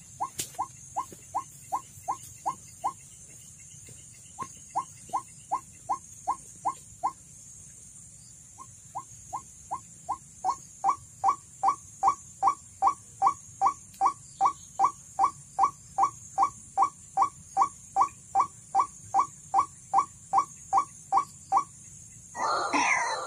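White-breasted waterhen lure call played through a speaker: short rising calls repeated about three times a second in runs that stop abruptly, the last run growing louder. Near the end a louder, ragged burst of bird calling breaks in.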